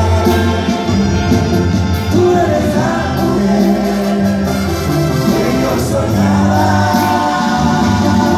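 Live Mexican band music, with a voice singing over a steady low bass line.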